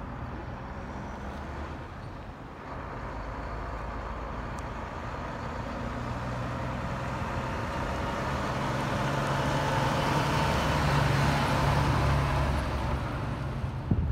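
Diesel engine of a tri-axle dump truck driving past on gravel, its steady low hum and tyre noise growing louder as it approaches, loudest a few seconds before the end and then easing off as it goes by.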